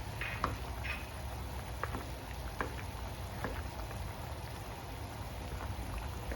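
Pot of pork caldereta stew boiling: a steady bubbling hiss with scattered small irregular pops.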